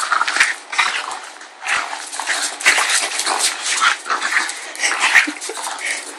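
Pug growling in play as she bites and tugs at a person's sneakers and laces, with a few short thumps from steps on the concrete floor at irregular moments.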